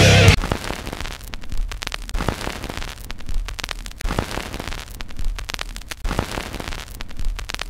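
Loud rock music cuts off just after the start, leaving an irregular crackling, static-like noise with scattered pops.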